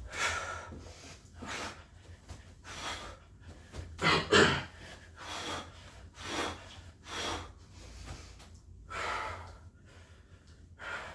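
A man's hard breathing during a set of burpees: loud gasping breaths about once a second, the heaviest a pair about four seconds in.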